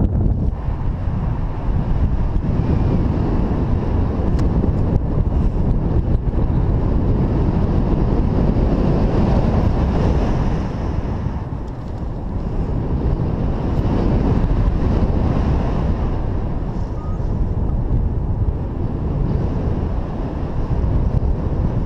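Wind noise: airflow buffeting the microphone of a camera carried by a paraglider pilot in flight. It is loud and steady, mostly low, and swells and eases a little.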